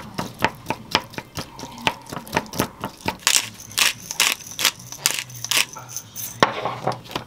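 A wooden spoon clicking and scraping against a small ceramic bowl as chopped onion and mayonnaise are stirred. About three seconds in, a pepper grinder is twisted over the bowl in quick rasping strokes, about three a second.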